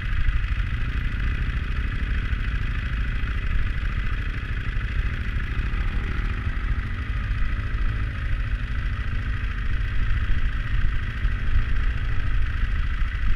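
KTM 990 Adventure's V-twin engine running steadily at low riding speed, heard from a camera mounted on the bike, with wind buffeting the microphone.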